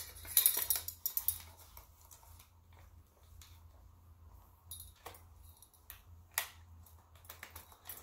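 Seac Sting speargun being handled while its monofilament shooting line is rigged: a quick run of sharp metallic clicks and rattles about half a second in, then quieter handling with a few single clicks.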